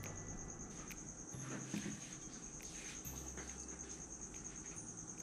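A steady, fast-pulsing high-pitched insect trill like a cricket's, running without a break, with a few faint clicks and a low hum beneath.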